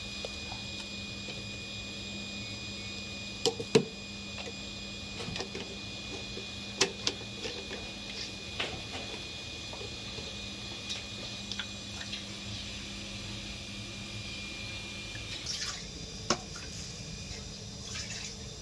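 Scattered clicks and drips of water in a steel pot as a spoon adds salt to the soup water, the loudest pair about four seconds in, over a steady background hum.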